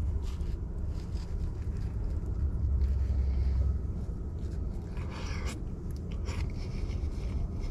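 A man biting into and chewing a slice of pizza, over a low steady rumble; a short noisy burst comes about five seconds in and a smaller one a second later.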